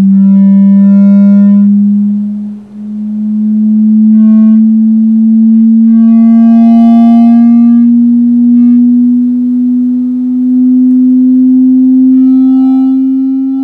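Loudspeaker playing a pure sine tone from a function generator, its pitch slowly rising as the frequency is swept upward to drive the soap film through its normal modes. Extra higher tones flare up briefly several times over the steady tone, and the level dips for a moment about two and a half seconds in.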